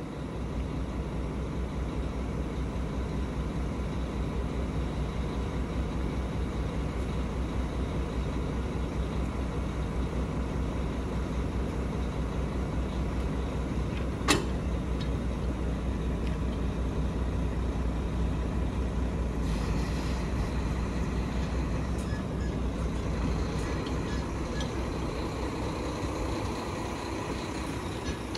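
Truck engine running at working speed to drive the hydraulic pump of a Palfinger PK 18002 EH loader crane as the boom unfolds and lifts. It is a steady low hum with a thin whine over it. There is a single short sharp crack about halfway through.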